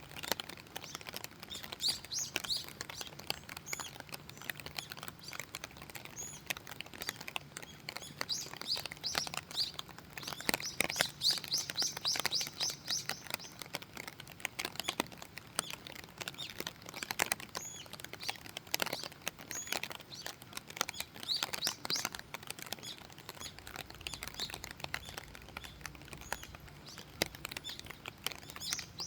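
Rain falling as a steady patter of individual drops, with small birds chirping repeatedly over it, including a fast run of chirps about ten seconds in.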